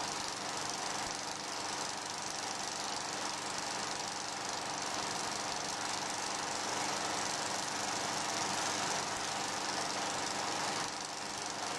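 Steady mechanical running noise with a hiss, even in level throughout.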